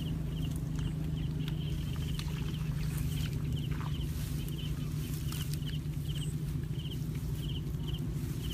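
Outdoor ambience: a steady low rumble with short, high chirps from a small animal repeating about twice a second, and a few faint clicks.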